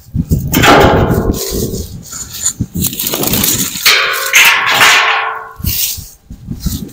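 Branches scraping and knocking against a metal burn barrel as they are pushed down into the fire, with some ringing from the metal, in two main bouts.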